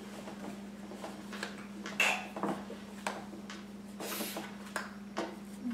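Brief, soft isolated letter sounds spoken one at a time during a flashcard drill, including a short hissing sound about four seconds in, between light taps and rustles of paper cards being handled. A steady low hum runs underneath.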